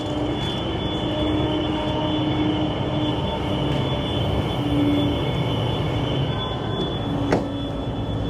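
Steady rumble and hum of a car ferry's engines and machinery, with a faint high whine over it and a single sharp click about seven seconds in.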